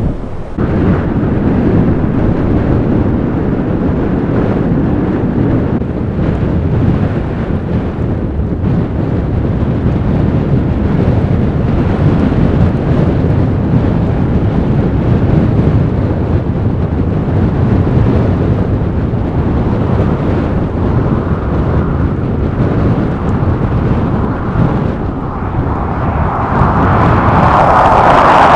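Strong blizzard wind blowing and buffeting the microphone with a steady rumble, swelling into a louder gust near the end.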